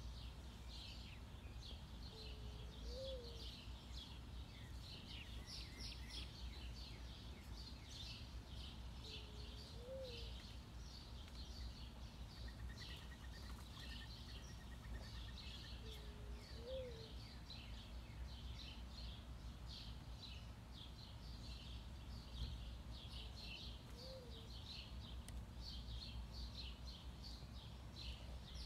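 Mourning dove cooing four times, about seven seconds apart, each a low coo that rises and falls, over continuous high chirping.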